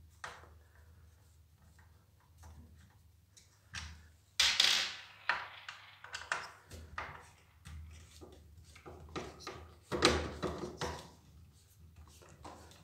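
Phillips screwdriver turning screws out of a pressure washer's plastic handle by hand: scattered small clicks and ticks of metal on plastic, with two louder, longer rubbing noises about four and a half and ten seconds in.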